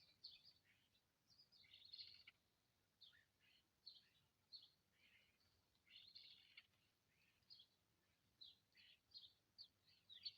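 Small birds chirping faintly, with many short, high calls coming a few times a second and overlapping now and then.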